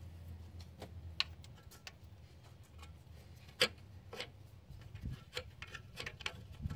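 Irregular light clicks and taps of a heat-shield nut being fitted and threaded by hand onto the exhaust manifold, with one sharper click about three and a half seconds in.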